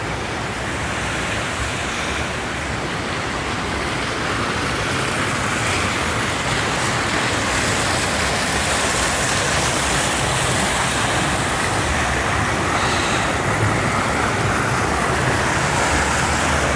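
Steady rush of creek water, growing gradually louder.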